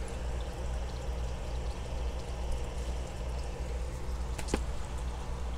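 Steady background hiss with a low hum, and a single brief click about four and a half seconds in as the picture book is handled.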